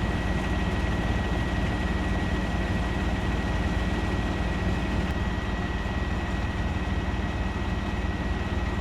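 A heavy engine running steadily, a low drone with a constant thin high whine over it.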